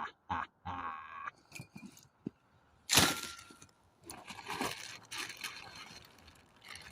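Camping kit being handled and unpacked: rustling and knocking, with one sharp crack or click about three seconds in.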